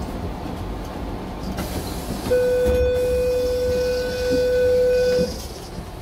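Train door warning tone: a steady electronic buzz held for about three seconds, starting about two seconds in, over the low rumble of the train carriage.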